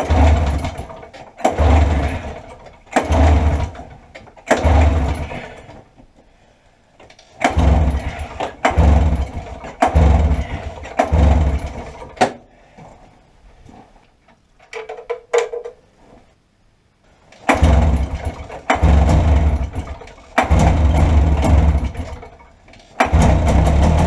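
Cold 1990 Arctic Cat Jag snowmobile's two-stroke engine being started: about a dozen short bursts of cranking, a second or so apart in three sets of four, before it catches near the end and keeps running.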